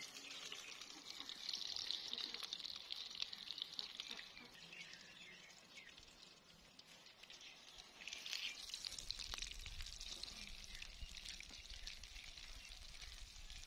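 Eggplant slices sizzling as they fry in oil in a wok, a faint steady fizz with fine crackles that dips for a couple of seconds midway. A low rumble joins about two-thirds of the way through.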